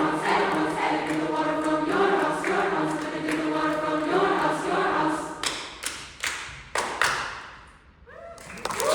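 Mixed SATB choir singing sustained a cappella chords. A little past halfway the singing gives way to a handful of sharp percussive hits that die away.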